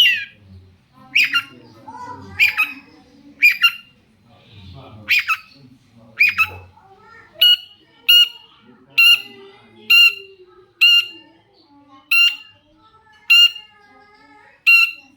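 Long-tailed shrike (cendet) calling over and over, about once a second. The first calls slur downward in pitch; from about halfway through, identical short calls come at an even pace.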